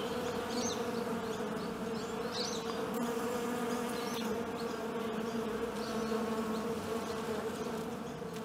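Honey bees buzzing: a steady, even hum of wingbeats.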